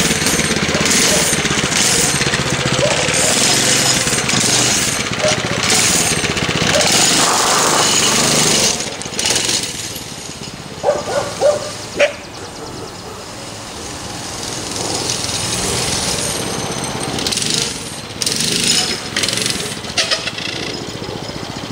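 Small minibike engine running loudly as the bike pulls away, then fading as it rides off, with a swell in engine level later on. A few short sharp sounds stand out after the engine fades and again near the end.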